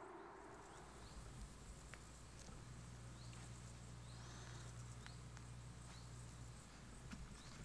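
Near silence: faint outdoor ambience with a few soft bird chirps and a low steady hum.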